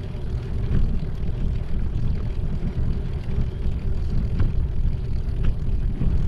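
Steady low rumble of wind buffeting the microphone and tyres rolling on a concrete path while riding a bicycle, with a few faint light clicks.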